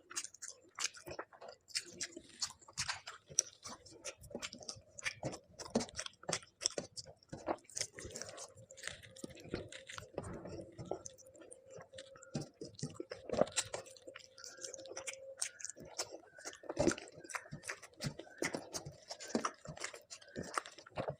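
A person chewing and biting food close to the microphone: a dense, irregular run of short mouth clicks and crunches. A faint steady tone sounds underneath for several seconds in the middle.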